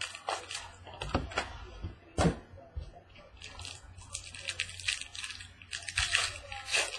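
A sealed trading-card box being opened: plastic wrap crinkling and tearing, with clicks and knocks of cardboard being handled. The crinkling grows denser about halfway through.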